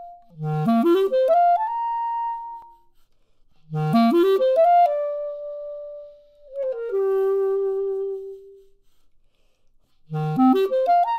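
Clarinet fitted with a carbon fiber barrel, played solo: fast upward runs from the low register, each landing on a held note. The second phrase holds a note and then steps down to a lower held note, and a third run starts near the end after a pause.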